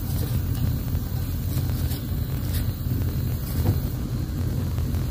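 Metal screw lid being turned onto a glass mason jar, with a few faint clicks, over a steady low outdoor rumble.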